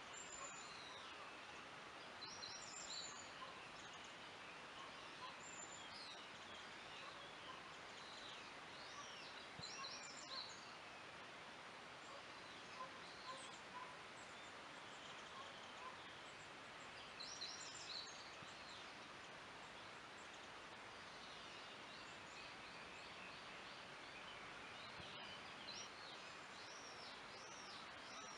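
Forest ambience: small songbirds chirping and singing in short, high, repeated phrases several times through, over a faint, steady hiss.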